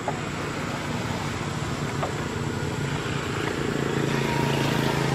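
A motor vehicle's engine running steadily, growing louder about three and a half seconds in.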